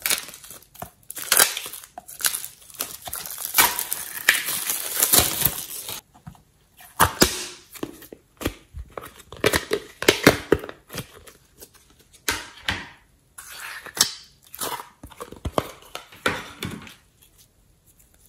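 Thin plastic shrink-wrap crinkling and tearing as it is peeled off a plastic slime tub, dense and continuous for about six seconds. After a short pause come separate crackles and sharp clicks as the tub and its plastic lid are handled and opened.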